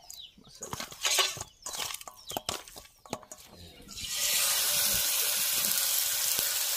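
Light clicks and rustles from hands working marinated chicken pieces in a steel bowl. About four seconds in, a piece is laid into hot oil in a cast-iron pan and the oil starts sizzling, a steady hiss.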